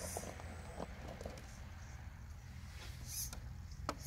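Scale RC rock crawler inching up a rock face: a few sharp clicks and scrapes of its rubber tyres and chassis on the rock, with a short scrabbling hiss near the end, over a low steady rumble.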